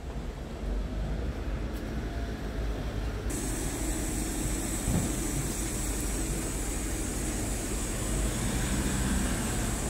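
Scania R tractor unit's diesel engine idling steadily, a low even rumble that grows a little louder and brighter about three seconds in, with a small knock near the middle.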